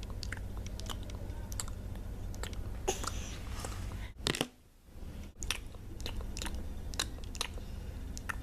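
Pretend eating noises made with the mouth: a run of quick munching smacks and crunchy clicks, over a low steady hum.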